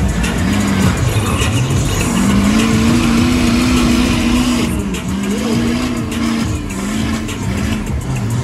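Mega truck engine revving hard under load in a truck tug-o-war pull, with the hiss of spinning tires. Its pitch climbs about two seconds in, dips about five seconds in, then climbs again.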